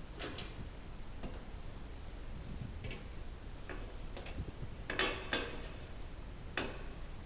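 Irregular sharp clicks and taps of hardware being handled, with the loudest pair about five seconds in.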